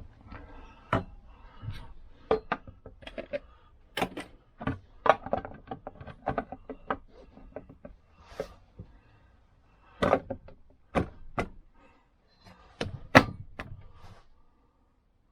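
Irregular metal knocks, clicks and clunks as a Lambretta Li125 engine's side casing, carrying the kickstart mechanism, is handled and offered up onto the engine; the loudest knock comes about 13 seconds in, then it goes quiet.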